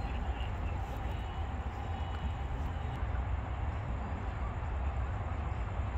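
Steady low rumble and hiss of city ambience, distant road traffic, with no single event standing out.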